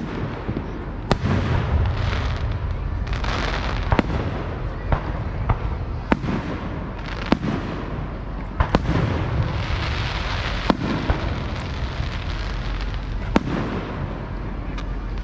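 Fireworks going off: about eight sharp bangs a second or two apart, with crackling and rumbling in between.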